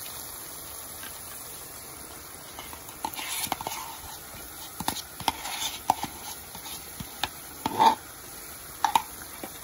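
A spoon stirring and scraping masala in a metal kadhai, with several sharp metal-on-metal clinks from about three seconds in, the loudest near the end. Underneath is a faint steady sizzle of the spice mix frying in oil.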